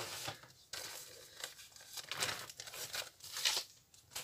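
Crinkling and rustling of plastic stencil sheets being handled and pulled out, in a run of irregular crackly strokes.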